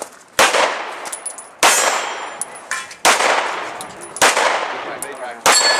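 Five gunshots about a second and a quarter apart, each with a long echoing tail, with a thin metallic ring after some shots from steel targets being hit.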